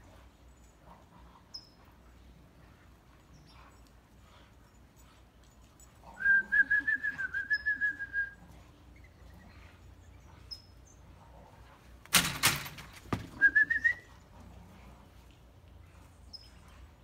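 A person whistling to call a dog: a wavering, pulsing whistle for about two seconds, then a few sharp smacks or claps and a short rising whistle. Faint bird chirps come and go in the background.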